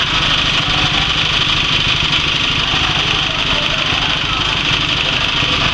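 Small engine running steadily as it drives a wet coffee pulping machine, with a fast even pulse and a constant machine hiss over it.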